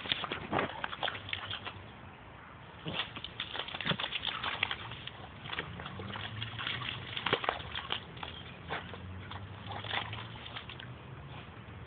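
Staffordshire Bull Terrier splashing and rolling in shallow muddy water: irregular sloshing and squelching splashes, busiest in a few spells.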